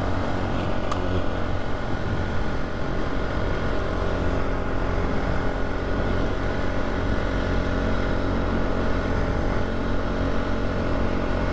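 Polaris ATV engine running steadily while riding along a dirt trail, its pitch holding level.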